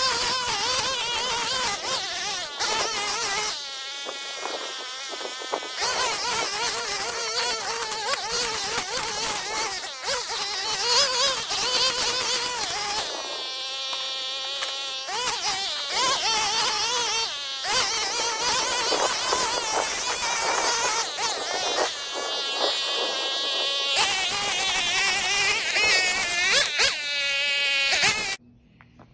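Black Max 4-cycle gas string trimmer running at high revs while cutting thick weeds and brush, its engine buzz wavering up and down in pitch as the line meets the growth, with a few stretches held at a steady pitch. The sound stops abruptly near the end.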